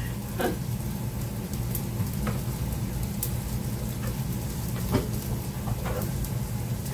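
A steady low hum with a faint hiss, broken by a few light clicks and knocks from a microwave oven being opened and handled, the loudest about five seconds in.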